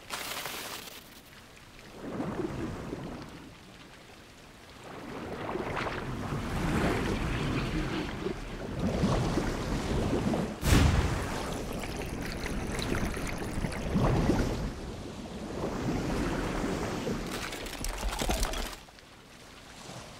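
Film sound effects of water being swept and swirled: several surging rushes of water that swell and fade, with one sudden sharp hit about halfway through.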